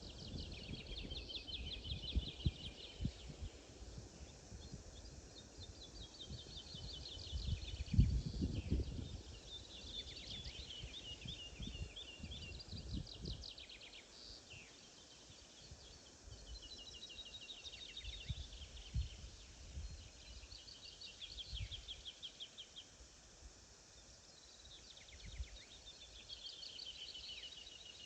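A songbird sings the same short song over and over, every few seconds: a quick run of high notes that drops in pitch. A low, gusty rumble underneath is strongest in the first half.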